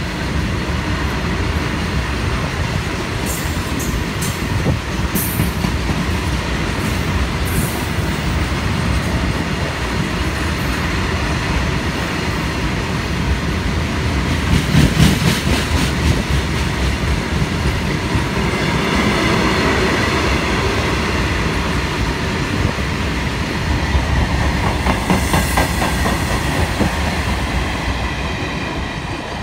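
Loaded wagons of a long freight train rolling past close by, their wheels clattering over the rail joints in rhythmic bursts, with a high wheel squeal in the second half. The noise eases a little near the end as the last wagons pass.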